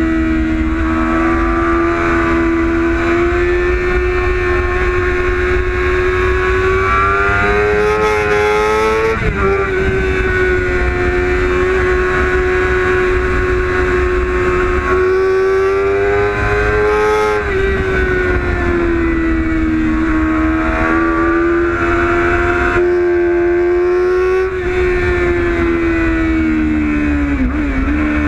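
Sport motorcycle engine at high revs, ridden on track, heard from onboard. Its pitch climbs slowly and then drops sharply three times, near 9, 17 and 27 seconds in, over a steady low rush.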